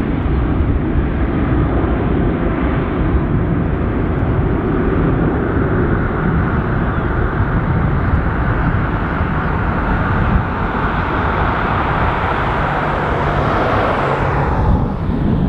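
Twin jet engines of an Airbus A330 at climb power just after takeoff: a loud, steady rushing rumble. The higher part of the noise falls away sharply near the end.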